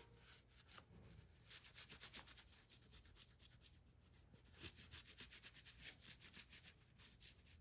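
Faint rapid rubbing strokes as Flitz metal polish is worked over a rusty steel knife liner to polish the rust off.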